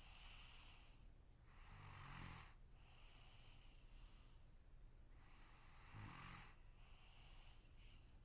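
A sleeping person snoring faintly: two snores, about two and six seconds in, with softer breaths between them in a slow, even rhythm.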